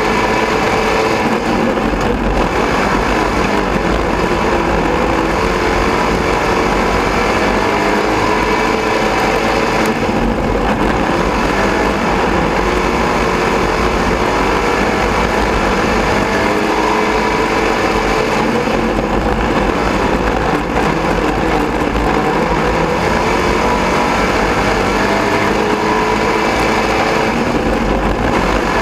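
Dirt-track race car engine running hard at racing speed, heard from inside the cockpit over constant wind and track noise. Its pitch rises and falls, with a brief dip about every eight seconds.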